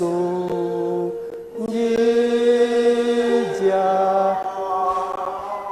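A man singing a Luganda hymn unaccompanied, in slow, long-held notes, with a short breath about a second and a half in.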